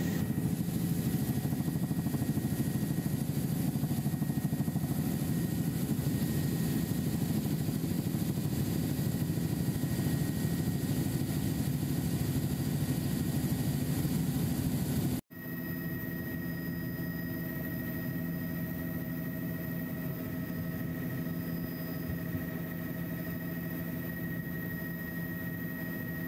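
Helicopter cabin noise heard from inside: the steady drone of the engine and rotors with a few steady tones running through it. About halfway through it cuts out for an instant, then resumes a little quieter.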